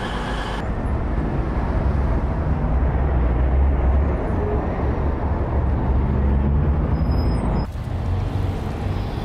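Low, steady rumble of vehicle noise, swelling through the middle. The sound changes abruptly twice, once under a second in and again near the end.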